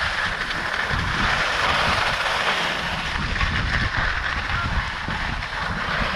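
Skis sliding and scraping over snow in a steady hiss, with wind buffeting the microphone underneath.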